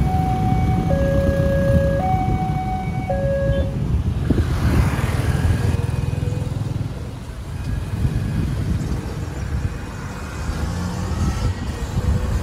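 Railway level-crossing warning alarm sounding two alternating electronic tones, switching about once a second, then cutting off a few seconds in as the crossing clears after the train. Underneath is the steady rumble of motorcycle and car engines, swelling briefly as traffic moves off across the tracks.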